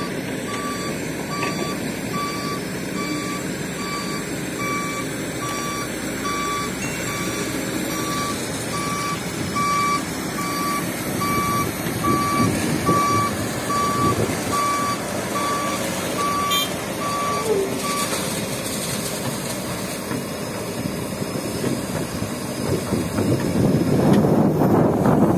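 A dump truck's reversing alarm beeping about once a second over running diesel engine noise; the beeping stops about three-quarters of the way through, and the engine noise grows louder near the end.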